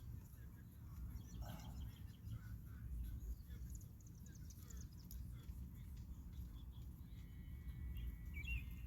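Faint rustling and small clicks of e-bike wiring and parts being handled over a low background rumble, with a bird chirping a few times near the end.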